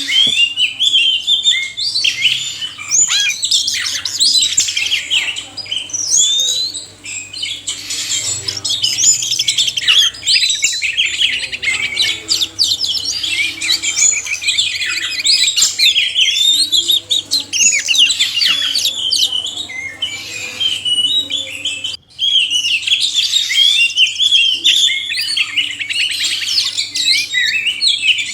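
Oriental magpie-robins, male and female, singing together: a dense, continuous stream of high chirps, whistles and harsh notes, broken by one brief gap about three quarters of the way through.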